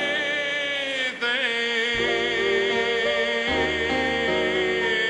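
A male crooner holding a long note with vibrato over a small swing band's sustained closing chords, the bass moving to a new note twice.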